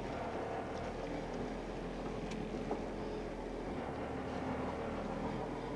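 Boat engine idling with a steady low hum, with a couple of faint knocks over it.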